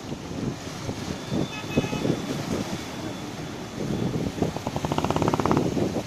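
Wind buffeting the microphone in irregular gusts over the wash of sea waves, with a brief rapid buzzing rattle near the end.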